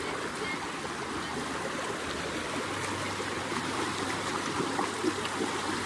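Small river flowing over rocks: a steady, even babble of running water.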